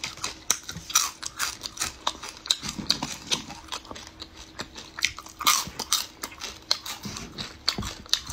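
Close-up eating sounds: small whole crabs bitten and chewed shell and all, with a run of sharp, irregular crunches.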